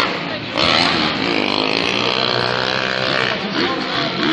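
Racing engines revving on a dirt track, their pitch rising and falling.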